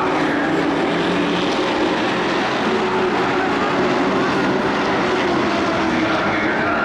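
Engines of a field of pickup-bodied race trucks running laps on a dirt oval, a steady drone with no break.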